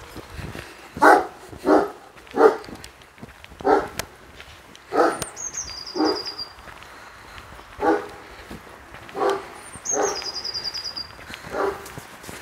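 A dog barking about ten times at uneven intervals, the loudest barks near the start. A songbird sings a short descending trill twice, once near the middle and once near the end.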